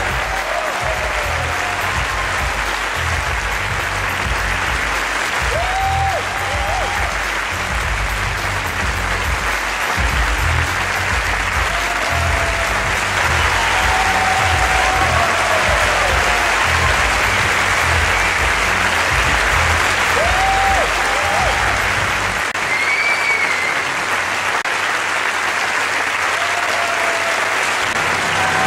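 Audience applauding steadily over backing music with a pulsing bass beat; the beat drops out about three quarters of the way through while the applause goes on.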